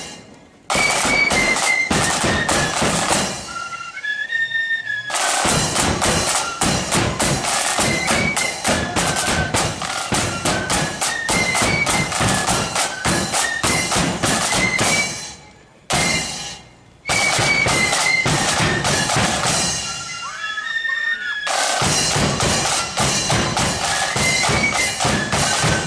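Marching flute band playing a tune: flutes carry the melody over rapid snare drumming and a bass drum. The drums drop out briefly about four seconds in and again about twenty seconds in, leaving the flutes alone, and there is a break of about a second near sixteen seconds in.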